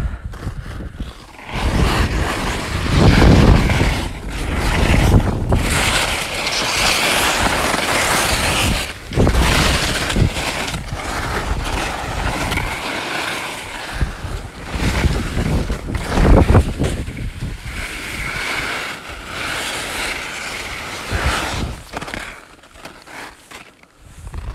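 Skis sliding and turning down a steep snow slope, the edges hissing and scraping on the snow in surges, with wind buffeting the microphone.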